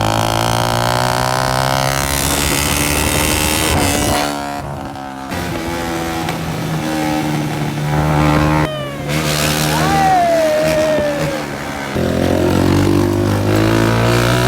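Honda CG 125's air-cooled single-cylinder four-stroke engine being revved and held at idle through a burst, half-missing silencer, giving a loud straight-piped exhaust note. The revs rise and fall a few times.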